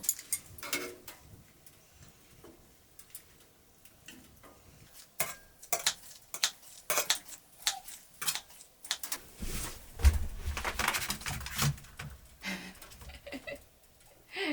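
Small hard objects clinking and knocking as they are handled, in irregular scattered clicks, with a heavier thump about ten seconds in.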